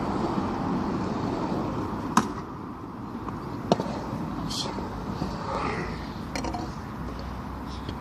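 Skateboard wheels rolling on concrete with a steady low rumble, then two sharp wooden clacks of the board striking the ground, a little over two seconds in and again about a second and a half later.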